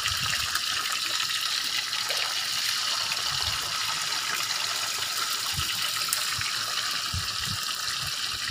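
Fish frying in a pot of hot oil: a steady sizzle, with a few soft low thumps.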